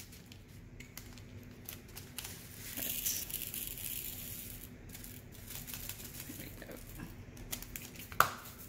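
Plastic bag of resin diamond-painting drills crinkling as the drills are poured from it into a small plastic storage container, with a stretch of hissing rustle a few seconds in and a sharp click near the end.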